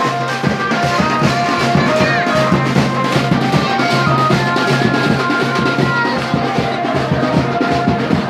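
Loud music: a melody of short held notes over dense, fast drumming and a steady low drone.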